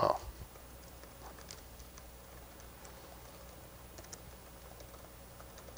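Laptop keyboard typing: faint, irregular key clicks as a terminal command is entered. A short thump at the very start is the loudest moment.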